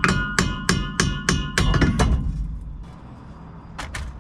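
Steel hammer blows on a truck's rear driveshaft at the axle end, knocking it loose. There are about three sharp strikes a second, each ringing like struck metal. They stop about two seconds in, and a couple of lighter knocks follow near the end.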